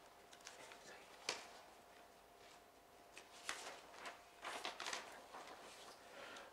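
Faint rustling of paper sheets being handled at a desk, with one sharp click a little over a second in.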